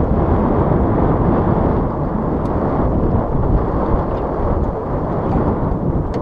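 Wind buffeting the microphone: a steady, loud low rumble with a few faint ticks.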